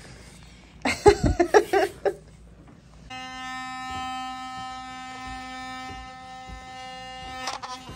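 A short burst of laughter about a second in. Then, about three seconds in, an electric toothbrush switches on and hums steadily at one even buzzing pitch.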